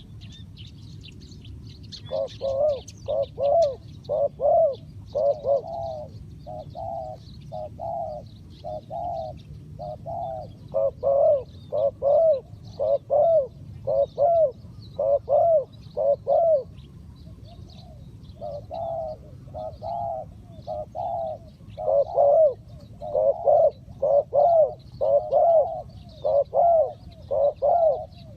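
Spotted dove cooing in a long series of repeated coo phrases, with a brief pause partway through. Faint chirps of small birds sound behind it.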